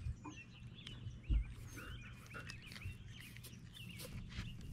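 A quick run of short, high, wavering animal calls, several a second through the middle, with a single dull thump about a second in.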